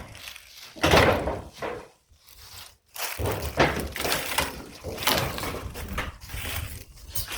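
Barn demolition: wooden boards being knocked and torn loose, a series of knocks and clattering thuds. One loud knock comes about a second in, then a short pause, then repeated knocks.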